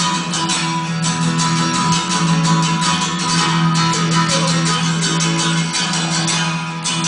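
Music: an instrumental passage of a song, led by strummed guitar with a steady beat.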